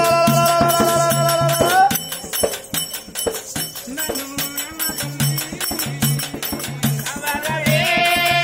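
Oggu katha folk music. A long held note runs to about two seconds in, then a rhythmic stretch of drum beats with jingling percussion follows, and another held note begins near the end.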